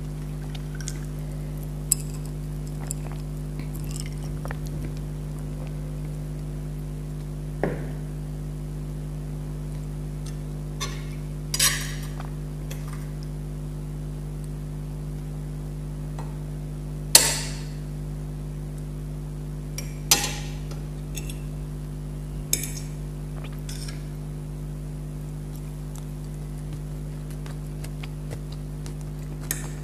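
Metal spoon and fork clinking and scraping against plates now and then while food is scooped up, the loudest clink about two thirds of the way through. A steady low electrical hum runs underneath.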